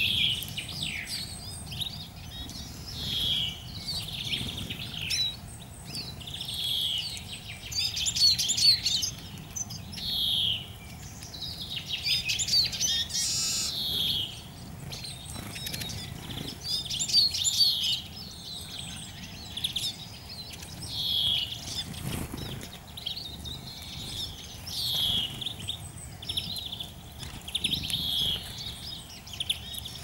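Small songbirds calling over and over, short thin slurred notes about once every second or so, with a stretch of faster twittering near the middle.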